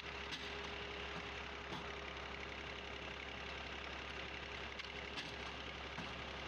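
Old tractor engine running steadily, turning a brick-making machine through a shaft fitted to its raised drive wheel. A few light clicks from the machine sound over the steady hum.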